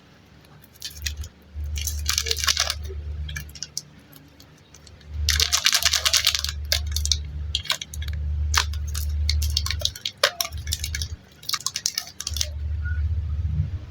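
Plastic packaging of super light clay packs crinkling and crackling as it is handled and opened, in several bursts, over a low rumble of handling close to the microphone.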